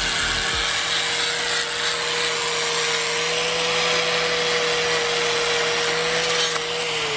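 Small angle grinder running steadily with a plastic abrasive pad pressed against a feathering propeller, cleaning it down to bare metal without cutting into it. The motor holds one steady whine over a scraping hiss, then starts to slow and drop in pitch near the end.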